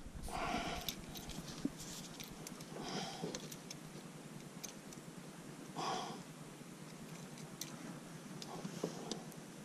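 A man's breathy exhalations, three soft sighs about half a second, three seconds and six seconds in, over faint scattered clicks of forceps and fishing line while a hooked pike is being unhooked.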